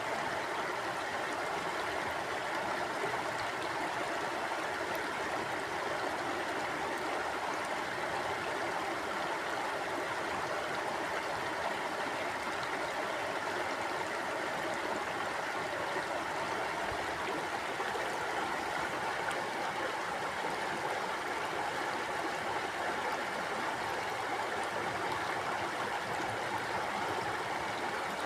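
Stream water flowing and burbling at a steady level, an even rush without breaks.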